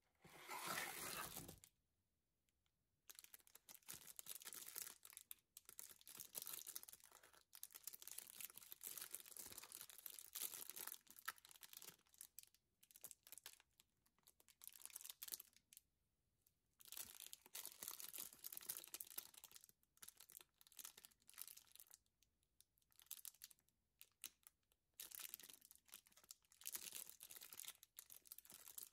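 Clear plastic wrapper of a snack cake crinkling softly as it is handled, in irregular bursts with short pauses between them. A louder burst of handling comes at the very start.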